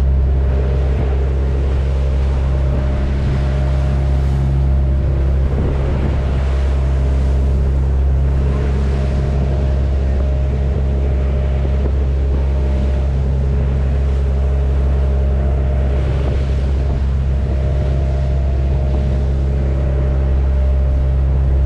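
A tour boat's engine running steadily, a constant low drone, with waves splashing against the hull and wind buffeting the microphone in choppy seas.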